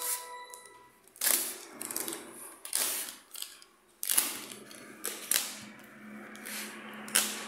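Box cutter slicing through a plastic poly mailer bag and the plastic being torn and crinkled open by hand, in about six short, sharp bursts.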